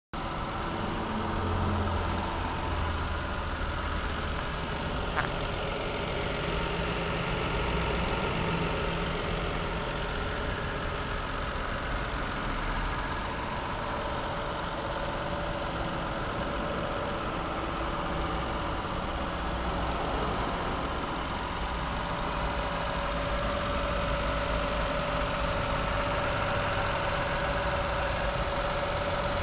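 Toyota Soarer 2.5GT's 1JZ-GTE twin-turbo 2.5-litre straight-six idling steadily. A single short click comes about five seconds in.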